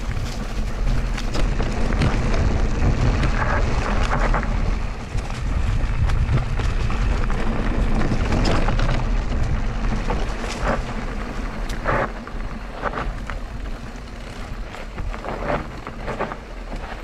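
Wind buffeting the microphone over the rumble of a Mondraker Crafty Carbon RR electric mountain bike rolling down a dirt trail, with scattered sharp knocks and rattles as it hits bumps. The rumble eases after about twelve seconds.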